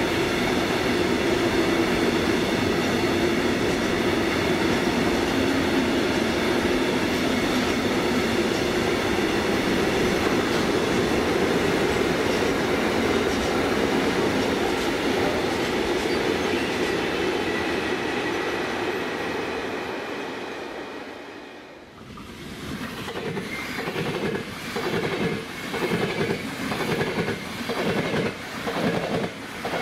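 Train running past on the track: a steady rumble with high steady squealing tones that fades away about twenty seconds in. After a brief dip, train wheels clack over rail joints in a steady rhythm, about one and a half beats a second.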